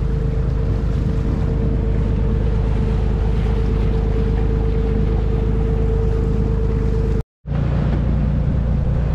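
Inboard engine of a 10-metre motor boat running steadily under way, with a steady whine over it and water and wind noise. The sound drops out completely for a moment about seven seconds in, then the engine comes back.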